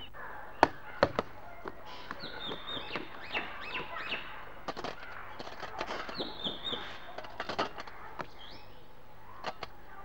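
A leather football thudding as a boy kicks it about, a few sharp thumps in the first second and more scattered after. Birds chirp in the background, twice in short runs.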